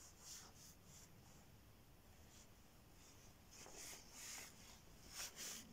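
Near silence: faint room tone with a few soft, brief scratchy rustles.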